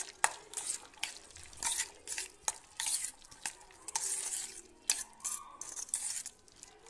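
A spoon stirring a thick mayonnaise and chopped-vegetable mix in a stainless steel bowl: repeated irregular scrapes against the bowl, with a few sharp clinks of the spoon on the steel.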